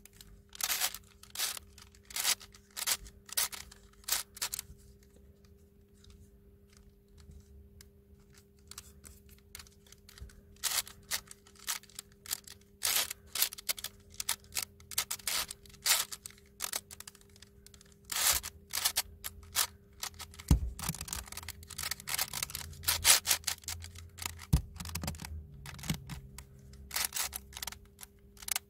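Rapid plastic clicks and clacks from a hand-turned 7x7x7 ball-in-cube twisty puzzle as its layers are twisted, thinning out for a few seconds before picking up again.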